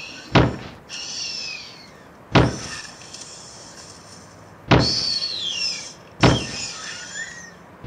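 Giant dinosaur footsteps as a sound effect: five heavy, deep thuds about two seconds apart. Birds call between them with high, falling whistles.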